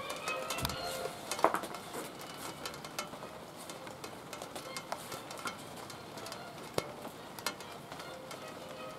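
Castanets clicking irregularly and character shoes striking a tiled patio, the loudest click about a second and a half in, over a hiss of light rain and faint recorded music.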